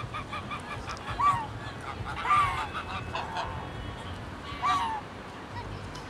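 Domestic geese honking: a quick string of short honks, then four louder single honks spread over the next few seconds.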